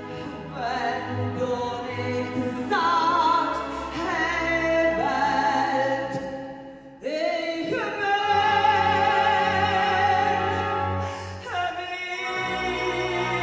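Soprano singing an operatic melody into a handheld microphone over a symphony orchestra's accompaniment. Her phrases break off briefly about seven seconds in, and she then holds a long high note with vibrato.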